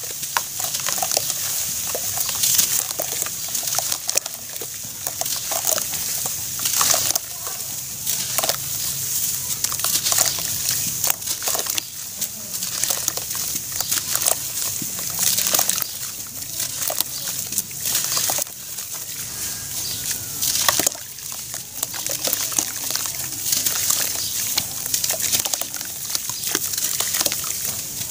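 Wet slabs of charcoal ash crushed and crumbled by hand in a bucket of water: sloshing and squishing, with a constant fine crackle and irregular crunches.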